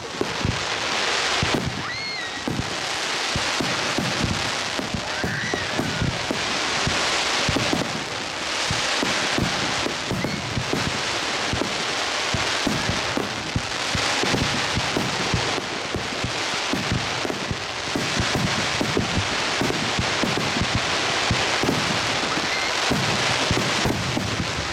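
Star mine fireworks barrage: a dense, continuous stream of bangs and crackling pops with deep booms underneath, and a couple of short whistles from rising shells in the first few seconds.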